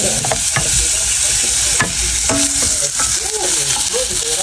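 Prawns frying in oil and sambal, sizzling steadily, while a black plastic spatula stirs them, scraping and knocking against the pan several times.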